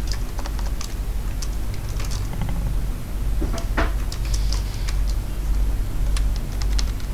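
Irregular keystrokes on a computer keyboard, scattered single clicks over a steady low hum.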